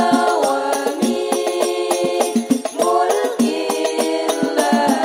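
A group of women singing an Arabic sholawat in unison into microphones, in long melismatic held notes, accompanied by hand-beaten rebana frame drums keeping a running rhythm.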